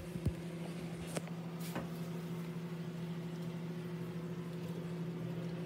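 Microwave oven switching on and running with a steady electrical hum. There are a few faint clicks in the first two seconds.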